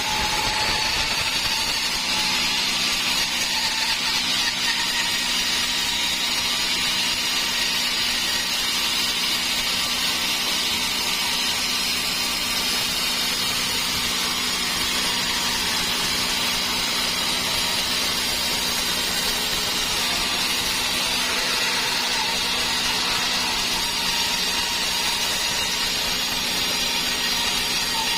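Sawmill saw cutting dry teak timber: a loud, steady mechanical noise with a constant motor hum underneath.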